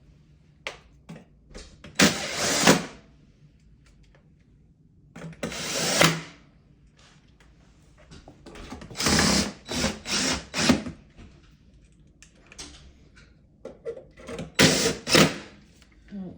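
Hands working on a dishwasher: several bursts of scraping and rattling, each under about a second, with scattered clicks and knocks in between.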